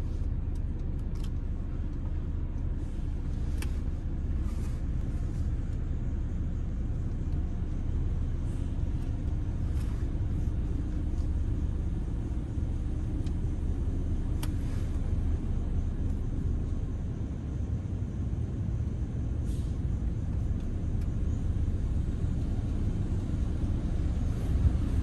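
Low, steady rumble of a BMW running at idle and creeping forward, heard from inside its cabin, with a few faint clicks.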